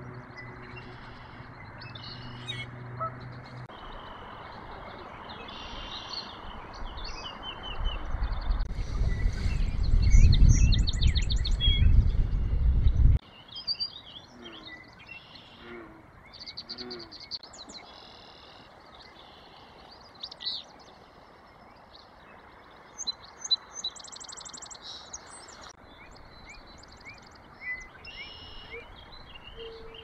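Marsh ambience: many birds singing, with overlapping chirps and trills throughout. About a third of the way in, a loud low rumble builds for several seconds and then cuts off suddenly, and a few short low notes follow it.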